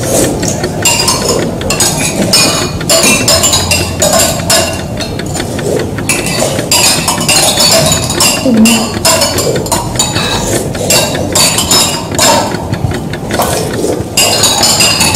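Many light, hard clinks in quick, irregular succession, small objects striking together.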